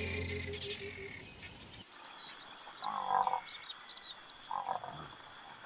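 Background music fading out over the first two seconds, then natural ambience with frogs croaking: a few short calls about three seconds in and again near four and a half seconds. Short high chirps and a thin steady high tone run through it.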